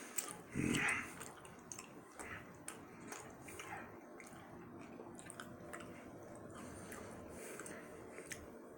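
Chewing a thick piece of gummy candy, with scattered faint mouth clicks. A short louder sound comes about a second in.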